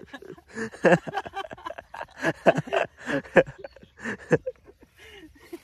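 A person's voice in quick, broken syllables, fading near the end.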